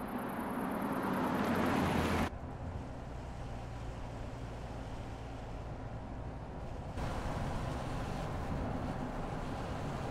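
Mercedes-Benz GLE SUV driving by on a winding road: tyre and engine noise swell as it approaches and cut off abruptly about two seconds in, then a steady low engine hum with road noise, changing abruptly again about seven seconds in.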